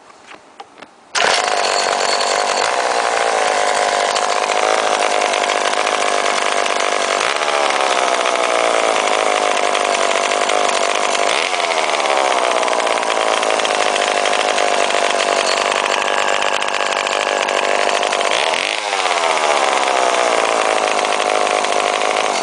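Pioneer 970 two-stroke chainsaw catching about a second in and running fast for about twenty seconds, its pitch dipping and coming back up a few times as the throttle is worked, then cutting out at the end. It is an old saw running again after a carburettor cleaning and exhaust repair.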